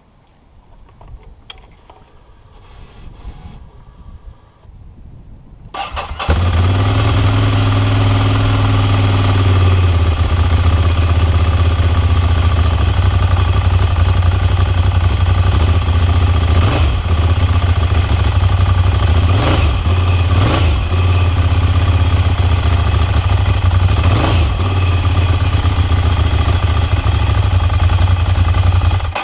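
Ducati Monster 796's air-cooled L-twin catches about six seconds in and runs at a raised idle that settles after a few seconds. It then idles loudly through its aftermarket-compared exhaust, with a few short throttle blips, and cuts off abruptly just before the end.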